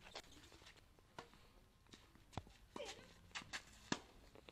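Faint, scattered knocks of tennis balls struck by rackets on clay courts, the sharpest about four seconds in, with a short falling call a little before it.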